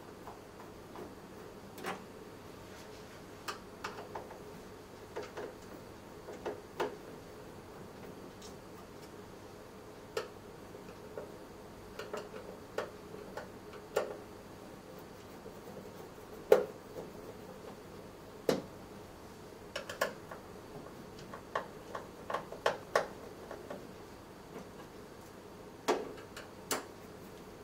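Scattered small clicks and taps of a screwdriver and screws on the sheet-metal case of an APC Smart-UPS RT3000 base unit as its top cover is unscrewed. They come irregularly, a few at a time, and grow busier in the second half.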